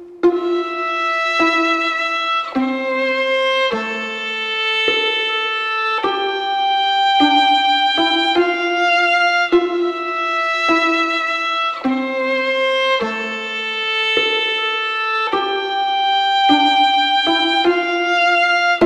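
Background music: a solo violin playing a slow melody of long held notes, each note changing about once a second.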